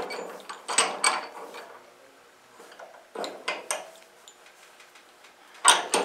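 Metal clinks and taps as a thin steel disc is handled and set into the jaws of a cast-iron bench vise. They come in a few short clusters, the loudest near the end.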